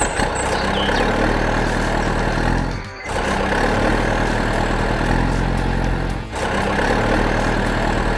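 Heavy vehicle engine running steadily, with two short dips about three and six seconds in.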